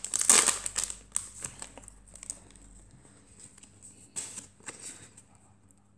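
Wrapper of a Japanese Pokémon card booster pack crinkling in the first second as the pack is opened, then quieter rustling and a few light taps as the stack of cards is slid out and handled.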